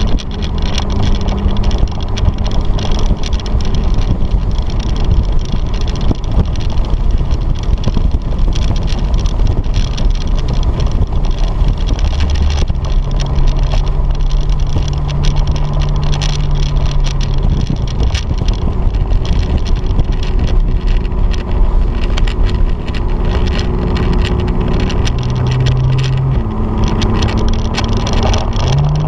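Porsche 911's flat-six engine heard from inside the cabin, running over loud tyre and wind noise. Its note steps up for a few seconds near the middle, drops back, rises and falls again later, and climbs in a rev near the end.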